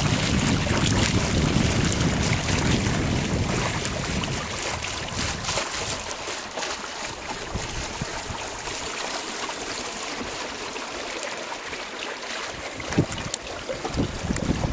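Water rushing and splashing along the hull and PVC-pipe float of a small sailing proa under way, with wind buffeting the microphone as a heavy rumble for the first four seconds or so. A couple of short knocks come near the end.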